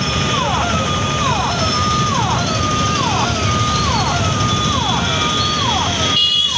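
An electronic warning siren repeating about three notes every two seconds, each held high and then sliding down in pitch, over the steady noise of crowded road traffic at a level crossing; it cuts off abruptly near the end.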